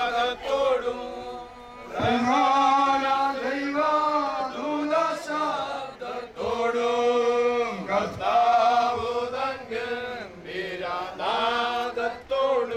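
Mourners singing a slow funeral hymn together, in long held phrases with short breaks between them.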